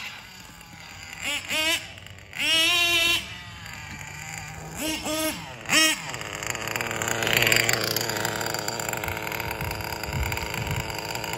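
RC truggy's small nitro engine revving in short bursts, its high whine rising and falling several times, then running more steadily as the truggy drives along.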